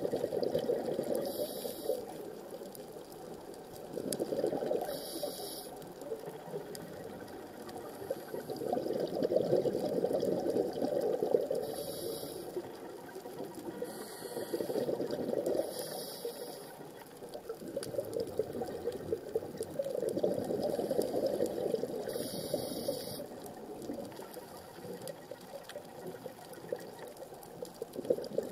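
Scuba diver breathing through a regulator underwater: a short high hiss on each inhale, then a long bubbling rush of exhaled bubbles, the cycle repeating every few seconds.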